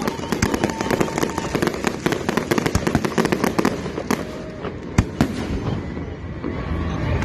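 Fireworks going off: a dense run of rapid crackling pops, with one louder bang about five seconds in.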